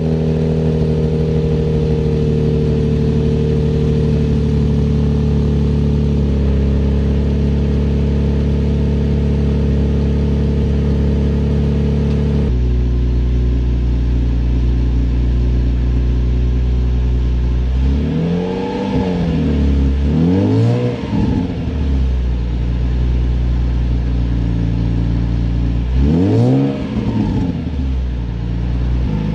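Nissan 350Z's 3.5-litre V6 running through an Invidia Gemini cat-back exhaust with Berk catalytic converters, idling steadily just after being started. About twelve seconds in the idle drops to a lower note. The engine is then revved twice in quick succession, and once more near the end.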